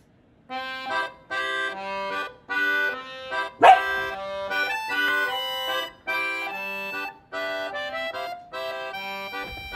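Background music: a bouncy tune played in short, stacked chords with brief gaps between phrases. About a third of the way in, a single loud, sharp dog bark cuts through it.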